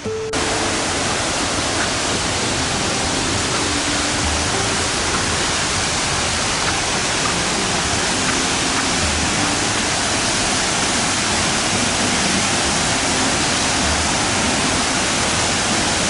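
A wide waterfall about 12 m high, with a steady, loud rush of falling water that cuts in abruptly just after the start.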